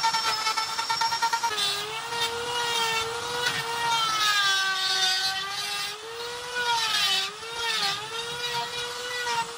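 Handheld electric rotary carving tool with a burr grinding into wood: a steady motor whine over a gritty grinding hiss. The whine's pitch sags several times, around the middle and again near the end, as the burr is pressed into the wood under load.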